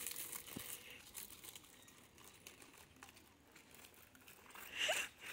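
Plastic biscuit packet crinkling as it is handled, strongest in the first second, then faint; a short, louder rustle near the end.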